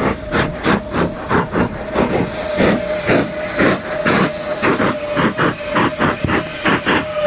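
Space Shuttle orbiter Endeavour just after landing, its hydrazine auxiliary power units running: a rapid, even, hissing pulse about three times a second over a steady whine.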